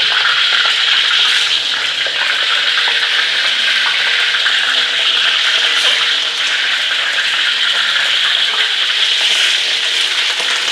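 Peeled boiled eggs frying in hot oil in a wok, a steady sizzle, with a few faint ticks as they are turned with a spatula.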